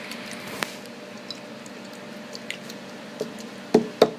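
Light handling noises while setting up a homemade vinegar volcano: soft squishy shuffling with a few short clicks and knocks, two louder ones near the end, over a steady faint room hum.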